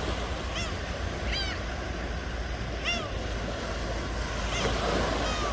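Ocean surf washing steadily, with several short, down-arching bird calls over it.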